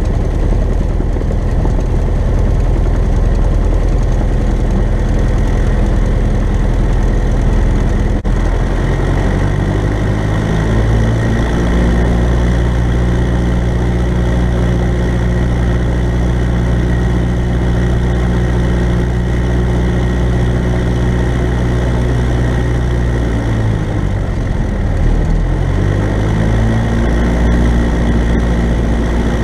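Cessna 172N's four-cylinder Lycoming engine and propeller during the pre-takeoff run-up. The engine idles, revs up about ten seconds in, holds a steady higher speed for about twelve seconds while the checks are made, then eases back toward idle near the end.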